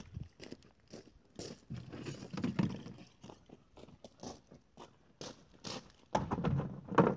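Footsteps crunching on loose gravel, with a hollow plastic storage tote carried and set down on the gravel. The loudest sound is a clatter and rustle near the end.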